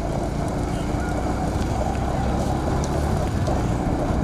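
Engine of a moving vehicle running steadily at road speed, with wind rushing over the microphone as a constant low rumble.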